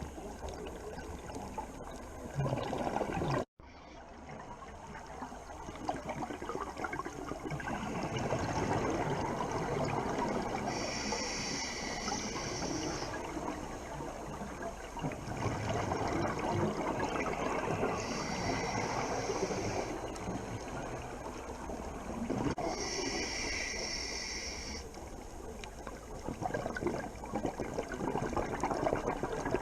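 Underwater scuba breathing: rushing, bubbling exhaust bubbles from a diver's regulator, with a hissing inhale of about two seconds that comes three times. The sound cuts out for an instant a few seconds in.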